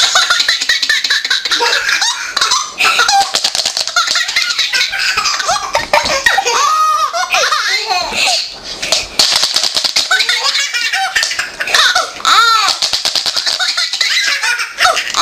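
A baby laughing in repeated high-pitched bursts.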